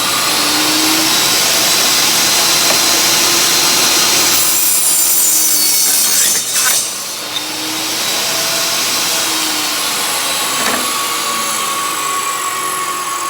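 Ryobi table saw running and its blade cutting through a blank of old furniture wood. About six and a half seconds in come a couple of sharp knocks, the workpiece kicking back off the blade because the push stick was too far from it, and then the saw runs on with a steady whine.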